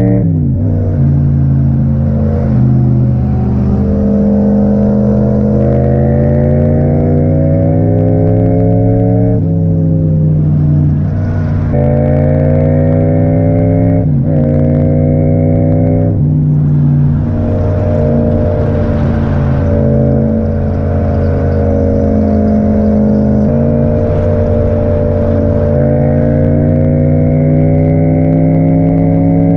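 Yamaha MT-07 parallel-twin engine through an Akrapovic exhaust, ridden on the road. The revs climb under acceleration and drop sharply at each gear change, several times in the first half, then hold a nearly steady cruise with the pitch slowly rising.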